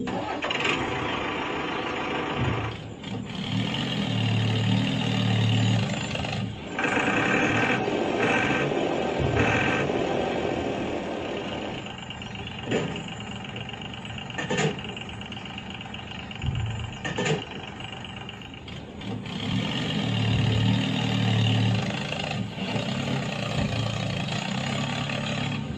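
Mini tractor running steadily, its pitch and level rising and falling as the load changes, with a few sharp knocks.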